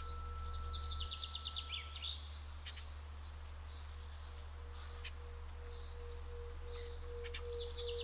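Tibetan singing bowl ringing with one steady tone that begins to waver and pulse in the second half, while a songbird sings a fast trill of rapid chirps twice, near the start and near the end.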